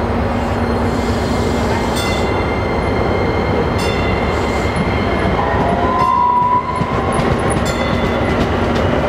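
DART light rail train pulling out and rolling past with a steady running rumble. Wheel clicks come a few times as it goes, and a brief steady high tone sounds about halfway through.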